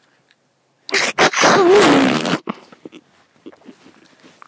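A child's loud, rough, breathy vocal noise made right against a phone's microphone. It starts about a second in and lasts about a second and a half, with a wavering pitch.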